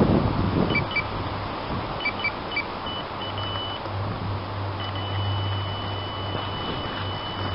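Electronic carp bite alarm sounding a run as a carp takes the bait and pulls line: a few quick single beeps, then a longer beep, then a continuous high tone from about two-thirds of the way in.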